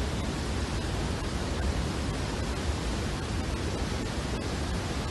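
Floodwater rushing through the opened spillway gates of the Kadem dam: a steady, even rushing noise.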